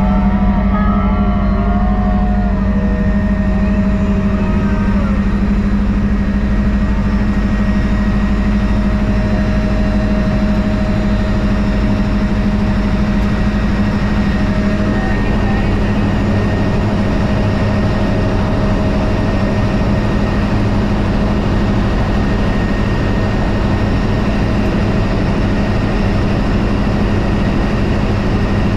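Helicopter in flight heard from inside the cabin: a loud, steady drone of engine and rotor with a constant low hum that does not change.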